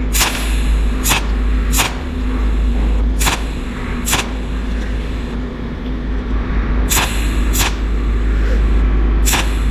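Cold welding machine firing single weld pulses: eight sharp snaps at uneven intervals over a steady low electrical hum.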